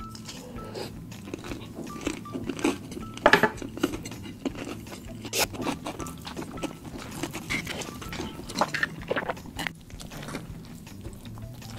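Close-miked eating sounds: a man chewing a mouthful of chicken rice bowl, with irregular wet clicks and crunches, the sharpest a few seconds in. Near the end he bites into a burger.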